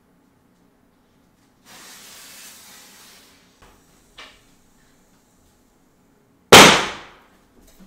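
Firecracker exploding: one sharp, very loud bang about six and a half seconds in that dies away over about a second. Before it, a soft rushing noise comes in about two seconds in, and there is a single click near four seconds.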